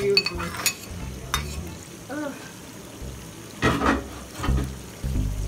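A slotted metal spatula scrapes and knocks against a plate and a steel pan as chopped green beans and carrots are tipped into a cooking sauce and stirred, with food frying underneath. There are sharp clicks near the start and a louder clatter about three and a half seconds in.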